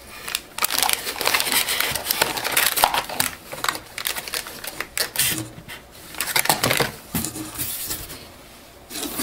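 Plastic-wrapped inkjet cartridges and their cardboard packing tray being handled: crinkling plastic with light clicks and rustles, easing off near the end.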